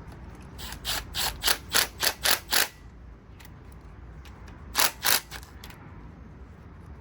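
Ratcheting wrench being worked on the 10 mm water pump bolts. Each back-swing gives a short ratchet rasp: a quick run of about seven, then two more a couple of seconds later.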